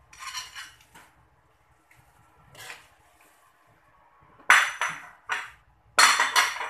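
Slotted spatula scraping and clinking against a ceramic plate and the rim of a metal wok as fish cake slices are pushed into the broth. Several short strokes, the two loudest in the last couple of seconds.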